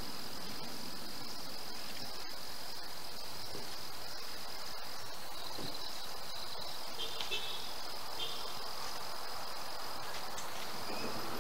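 Crickets chirring in a steady, continuous high-pitched trill over a light background hiss, with a few brief faint chirps about seven seconds in.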